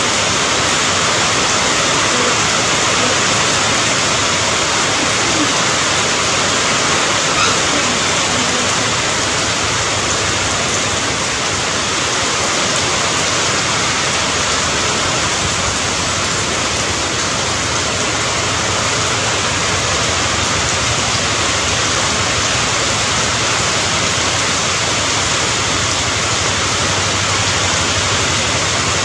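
Steady rain: an even, unbroken hiss that holds at the same level throughout.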